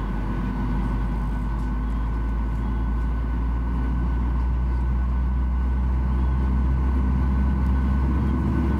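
Steady low drone of a Boeing 737-800's cabin as the airliner is pushed back, a deep hum with a faint steady whine over it, growing slightly louder toward the end.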